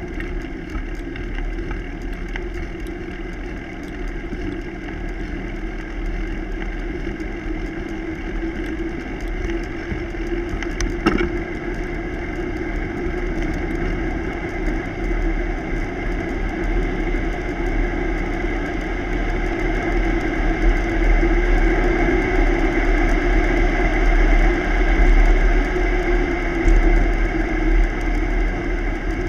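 Bicycle rolling along a paved road: a steady drone of tyre and road noise with wind rumbling on the microphone, growing louder in the second half. One sharp click about eleven seconds in.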